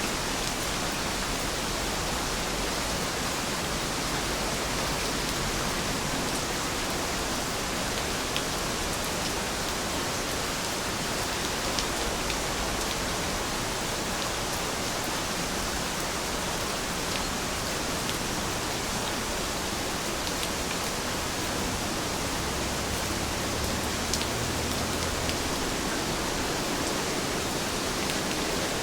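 Steady rainfall: an even hiss with a few faint drop ticks scattered through it.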